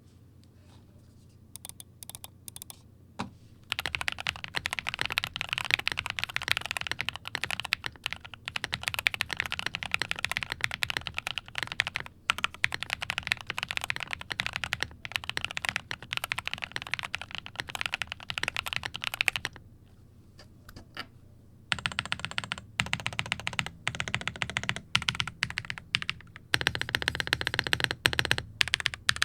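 Typing on a Luminkey98 (LK98) mechanical keyboard in its stock build. A few single keystrokes come first, then fast continuous typing. The typing pauses for about two seconds about two-thirds of the way through, then resumes.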